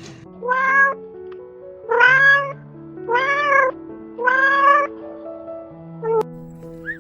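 Domestic cat meowing: four drawn-out meows, each rising then falling in pitch, about a second apart, then a short fifth call near the end, over steady background music.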